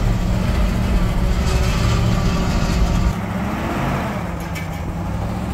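ZIL-131 army truck's V8 petrol engine running as the truck drives over snow, heard from inside the cab. About three seconds in, the sound changes abruptly to a quieter, steadier engine hum.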